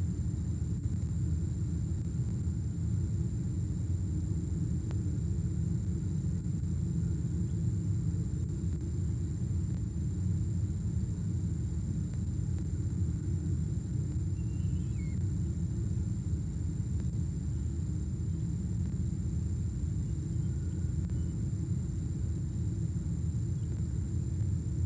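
Steady low rumble of wind buffeting an outdoor nest-box webcam's microphone, with a faint constant high-pitched electronic whine from the camera.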